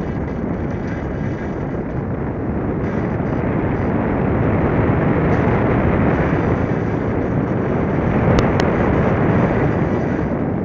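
Air rushing over the microphone of a camera mounted on an unpowered F3K discus-launch glider in flight, a steady noisy rush that grows louder about halfway through. Two brief clicks near the end.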